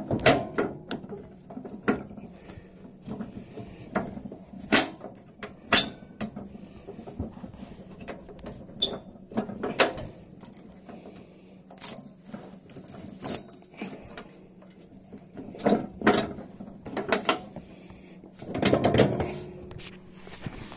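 Irregular metallic clicks, clanks and knocks of hands working the mower-deck belt and linkage under a John Deere 317 garden tractor, with a denser, louder run of knocks near the end.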